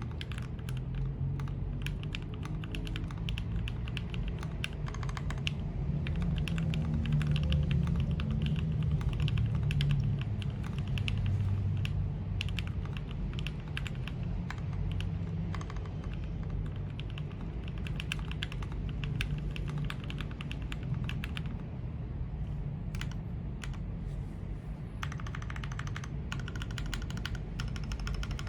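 Steady typing on a custom 40% mechanical keyboard with lubed Gateron Yellow KS-3 linear switches and Tealios V2 spacebar switches in an acrylic sandwich case, a dense stream of key clacks. There are a few short pauses in the last third.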